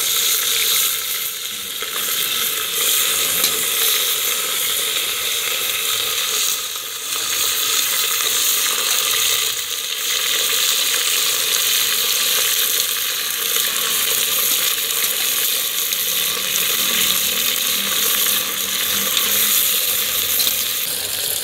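Raw pork pieces sizzling steadily as they fry in hot oil in an open pressure cooker, with more spoonfuls of meat added into the oil.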